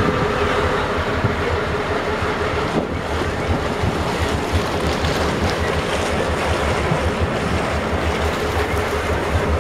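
Wind buffeting the microphone, with the steady hum of the deck shower's small electric pump at first. The hum stops with a faint click about three seconds in.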